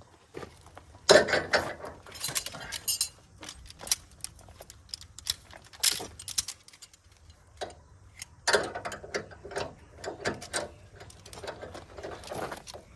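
Irregular metallic clinks, jingling and clanks of rigging hardware being handled while a pulling strop is hooked onto a tractor frame, with one louder knock about a second in.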